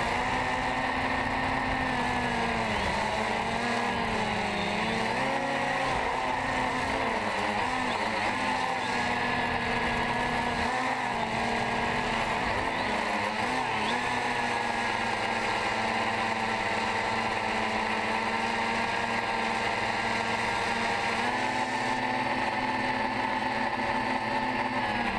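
DJI Phantom 2 quadcopter's brushless motors and 9-inch carbon-fibre propellers whining, heard from a camera mounted on the drone itself. The pitch wavers and shifts as it manoeuvres low for the first half, then holds steady, stepping up a little near the end as it climbs.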